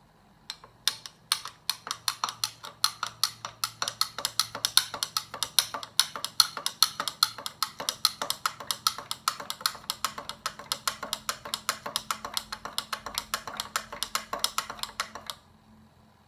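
A long metal spoon clinking rapidly against the inside of a double-walled glass as the coffee in it is stirred, about five or six clinks a second. It starts about half a second in and stops abruptly about a second before the end.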